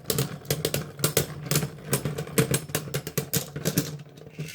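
Beyblade spinning tops battling in a plastic stadium: many rapid, irregular clacks as the tops strike each other and the stadium wall, over a steady whirring hum of the spinning tops.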